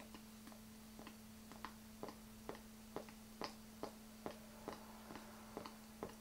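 Faint, even ticking, about two and a half ticks a second, over a low steady hum.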